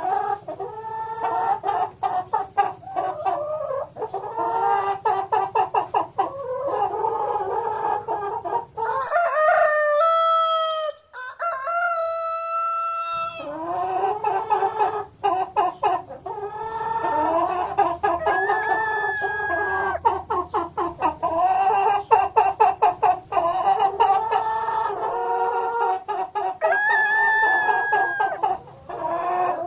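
Chickens clucking rapidly and continuously. A long drawn-out call, a rooster crowing, comes about nine seconds in and lasts some four seconds, and a shorter high call comes near the end.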